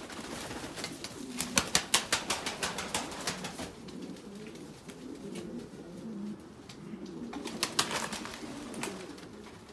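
Domestic fancy pigeons, pouters among them, cooing over and over in low, wavering calls. A quick run of sharp taps about one to three seconds in, and a few more near the end.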